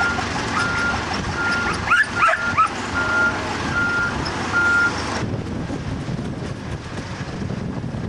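Backup alarm of a construction machine beeping steadily, about one and a half beeps a second, over low engine noise; the beeping stops about five seconds in while the engine runs on. A dog barks a few times about two seconds in.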